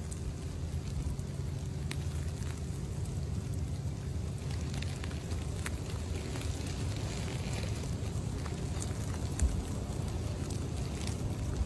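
Wind buffeting an outdoor microphone as a steady low rumble, with scattered light crackling and rustling of grass and one brief bump about nine and a half seconds in.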